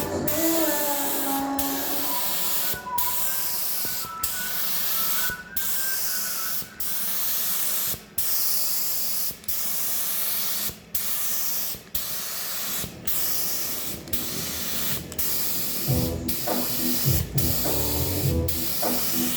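Red primer being sprayed onto a boat hull: a steady hiss of spray cut by short breaks about every second or so. Music comes in near the end.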